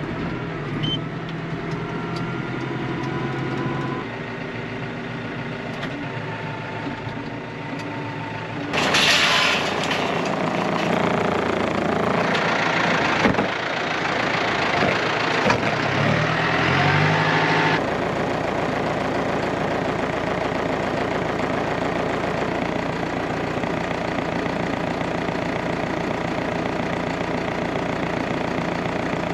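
Vehicle engine running, heard in several abruptly joined sections. A louder middle stretch has the engine rising in pitch a couple of times, and the last stretch is a steady run.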